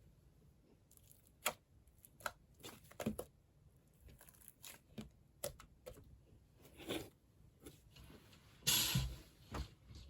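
Thick jiggly slime mixed with clay being pressed and stretched by hand, giving irregular sticky clicks and crackles, with a longer, louder crunchy squish about nine seconds in.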